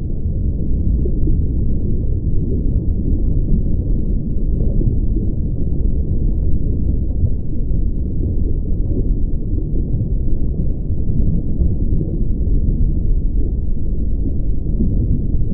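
Steady low rumbling noise with no pitch, muffled, with nothing heard above a low register.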